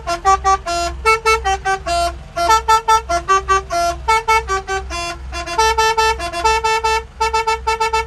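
Truck's musical air horns, driven by a Basuri-style horn module, playing a fast tune of short notes at changing pitches. A steady low pulsing runs underneath.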